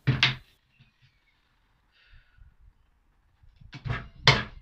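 Chisel work squaring off a slot in 9mm plywood: a sharp wooden knock at the start, a quiet stretch with faint scraping, then two or three more knocks close together near the end.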